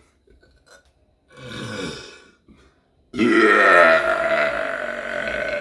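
A person burping twice on purpose: a short burp with a falling pitch about a second in, then a much louder, long burp from about three seconds in that lasts nearly three seconds.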